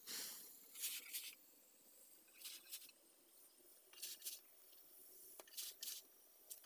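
Metal spatula pressing and pushing a layered paratha across a hot tawa: short, faint hissing scrapes and sizzles, mostly in pairs about every second and a half.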